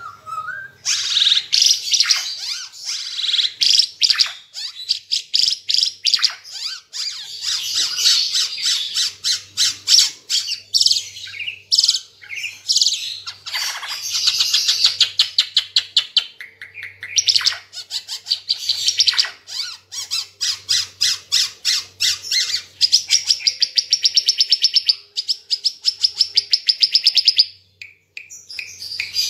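Timor figbird (Ara Timor) singing without pause: a loud, varied run of rapid chattering notes and trills, turning in the later part into a long, fast, even trill that breaks off shortly before the end.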